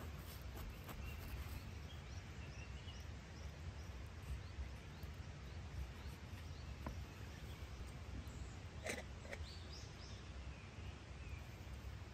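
Outdoor ambience: a steady low wind rumble with small birds chirping, a quick run of short high chirps in the first few seconds and one sharper call about nine seconds in.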